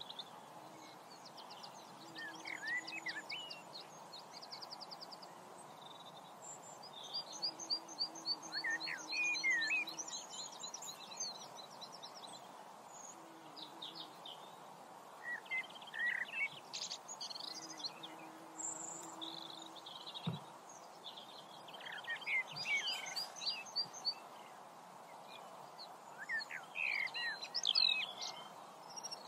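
Several birds singing and calling at once: rapid trills, quick downward chirps and short sweeping phrases overlap throughout, over a steady background hiss.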